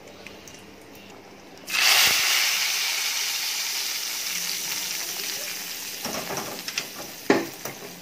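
Hot oil tempering of cumin, fennel, bay leaf, cinnamon and curry leaves poured into chana kurma gravy: a sudden loud sizzle about two seconds in that slowly dies away. A few knocks near the end as the kadai is scraped out.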